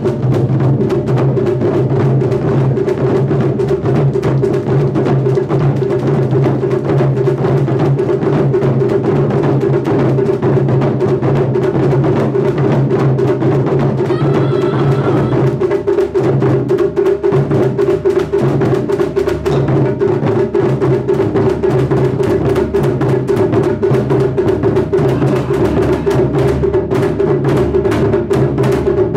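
Ensemble of Japanese taiko drums, barrel-shaped nagado-daiko struck with bachi sticks, playing a continuous driving rhythm of dense, heavy strokes.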